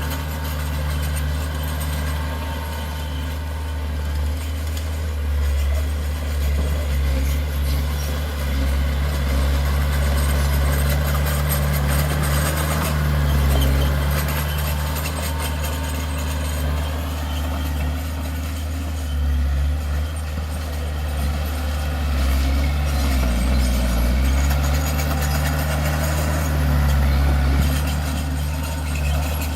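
Heavy diesel engine of earthmoving equipment running steadily at low revs, a deep even rumble with small shifts in pitch.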